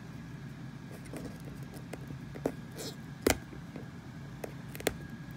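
A hand working a lump of sticky acrylic mounting tape against a wall panel gives a few sharp clicks and taps, the loudest about three seconds in. A steady low hum runs underneath.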